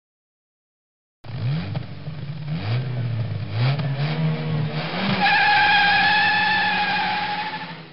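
A racing car's engine accelerating hard through the gears, its pitch rising and dropping back at each of several shifts. About five seconds in, a long, steady tyre squeal takes over and fades out at the end.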